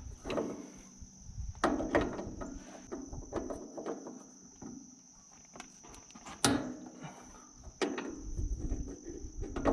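Crickets trilling steadily, with scattered clicks and clunks of a small wrench and fittings being worked on an excavator's fuel water separator, as its pressure-relief screw is released.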